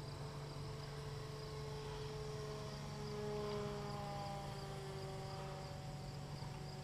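Faint whine of a radio-controlled Cessna 350 Corvalis model's electric motor and propeller as it flies past overhead, its pitch slowly falling. Crickets chirp steadily underneath.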